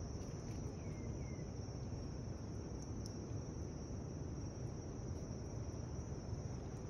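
Insects trilling in one steady, unbroken high-pitched tone over a low background hum.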